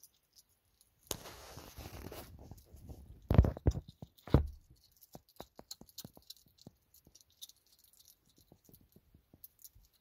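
Young hedgehog eating soft wet food: many small, quick smacking and chewing clicks through the second half. Earlier comes a rustle of about a second, then two loud knocks about a second apart.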